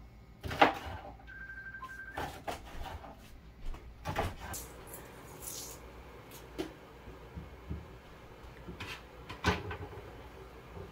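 Scattered knocks, taps and scrapes of a kitchen knife on a wooden cutting board as green bora (yardlong beans) are cut and potatoes are peeled, the sharpest knock about half a second in and others near four and nine and a half seconds.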